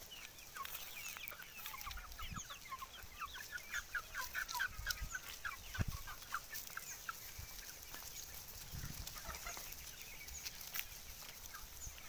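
A flock of young desi (Indian country) chickens clucking and calling, many short overlapping calls, busiest in the first few seconds and thinning out after, with a few soft low bumps.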